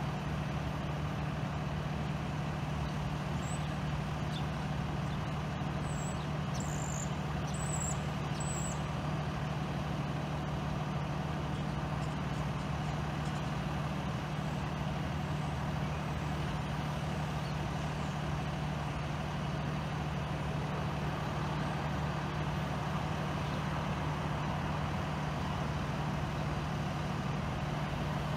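Steady, unchanging low drone of a parked box truck's engine idling. A few faint high chirps come about six to eight seconds in.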